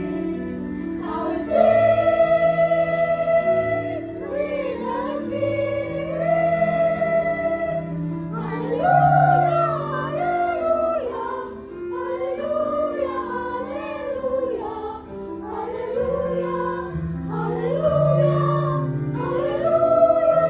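Church choir singing in phrases of a few seconds, over an accompaniment holding sustained low chords.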